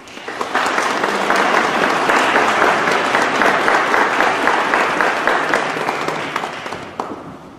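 Congregation applauding: many people clapping together, building within the first second, holding steady, then dying away near the end.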